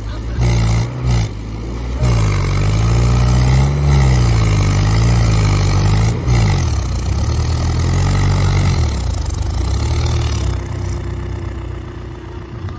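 Tractor diesel engine revving hard and unevenly while the tractor is stuck in deep mud, pitch rising and falling, then dropping back to idle about ten seconds in.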